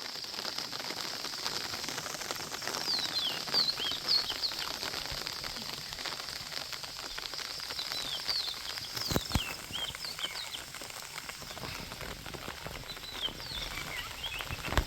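Birds calling in several bursts of short, high, falling chirps over a steady hiss of rain. There is a single sharp knock about nine seconds in.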